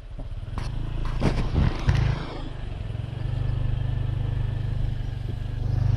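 A small engine running steadily with a low, even hum. A few sharp knocks and a clatter come between about half a second and two seconds in, and the engine grows louder near the end.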